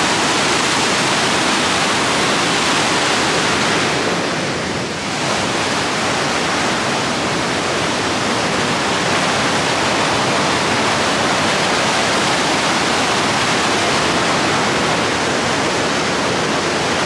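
Steady, loud rush of fast-flowing water, dipping briefly about four to five seconds in.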